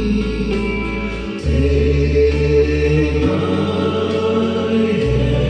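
Music with singing playing back from a Gradiente CD 5500 cassette deck through a stereo amplifier and loudspeakers, a bass line changing note every second or two under the voices.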